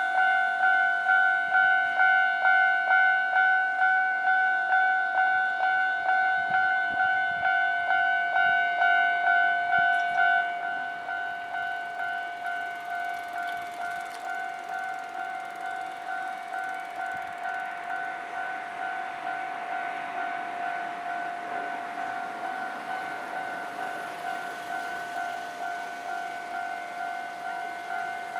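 Japanese railway level-crossing warning alarm ringing: an electronic two-tone chime repeating evenly, about three strikes every two seconds. About ten seconds in it becomes quieter and keeps ringing.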